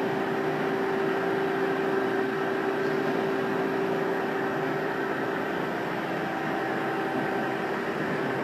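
Hydraulic pump unit of an Amada CNC press brake running steadily: a constant hum with a few steady tones over it.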